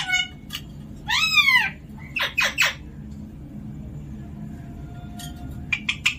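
Pet parrot calling: a whining call that rises then falls about a second in, two short squawks a moment later, and a few quick clicks near the end.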